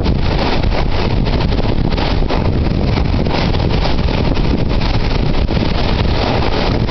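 Wind buffeting the microphone, a loud steady rumble, over rough surf breaking and washing against rocks.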